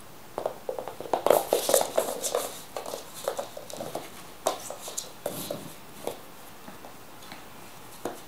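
An American Hairless Terrier puppy scrambling off a plush toy and scampering on a wooden floor with a toy ball: a flurry of scrabbling, clicking and knocking, loudest in the first couple of seconds, thinning out by about six seconds in.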